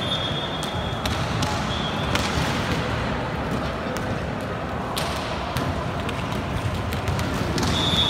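Indoor volleyball rally: a referee's whistle sounds at the start and again near the end. Between them come several sharp hits of hand on ball and ball on floor, over steady, echoing hall noise.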